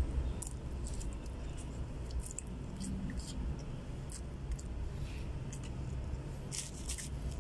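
A man chewing a mouthful of noodles and rice, with a few light clicks of a spoon against a plastic food container, over a steady low hum.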